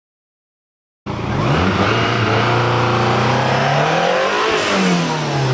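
Lancia Delta HF Integrale Evoluzione's turbocharged four-cylinder engine being revved, cutting in suddenly about a second in. The revs climb, hold, then rise and fall away again near the end.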